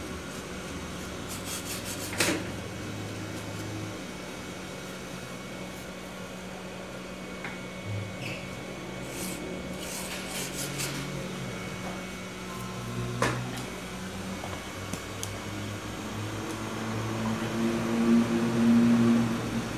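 A cotton swab and cloth rubbing and scrubbing across a TV panel's circuit board, over a steady low hum. A couple of sharp clicks stand out, and it gets louder near the end.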